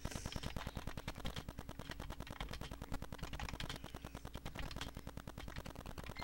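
Typing on a computer keyboard: a fast, continuous run of key clicks, over a low steady hum.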